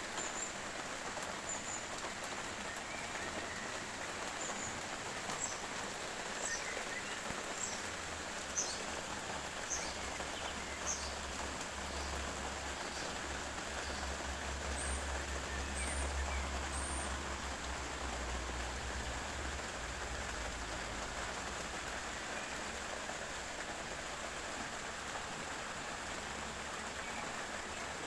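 Steady rain falling, with birds singing short high chirps through the rain, mostly in the first half. A low rumble comes in for a while in the middle.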